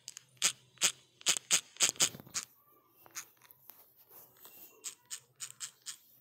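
Typing on a smartphone's on-screen keyboard: a quick run of about eight sharp taps, a pause, then another run of five or six taps near the end.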